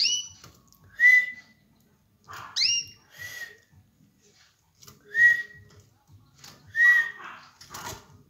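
Caged canary calling: a string of short, whistle-like chirps every second or two, some sweeping sharply upward and others held briefly on one note, with a brief wing flutter near the end.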